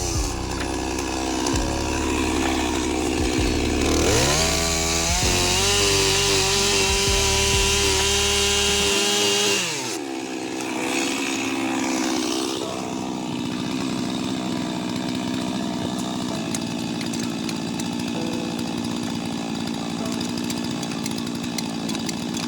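Two-stroke chainsaw running at high revs, cutting wood. Its pitch dips and climbs back up about four seconds in, holds high, then falls away about ten seconds in to a lower, quieter running with light clicking.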